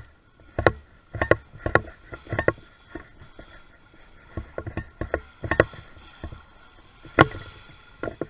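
Home-built aluminium RC jet boat running and turning on choppy water: a faint steady whine under a series of irregular sharp knocks, the loudest about seven seconds in.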